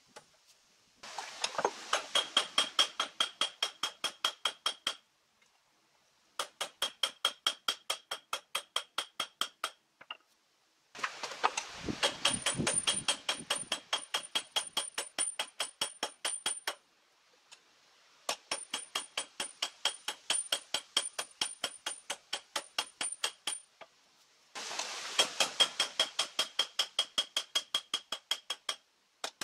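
Hand hammer forging red-hot steel on a small anvil, in quick runs of about five ringing blows a second with short pauses between runs.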